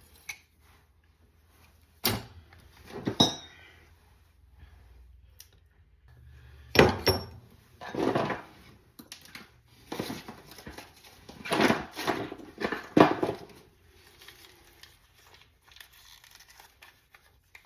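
Hand tools and small parts being lifted out and set down: scattered metal clinks and knocks, one with a short ring about three seconds in, with rustling and crinkling of packaging in bursts later on.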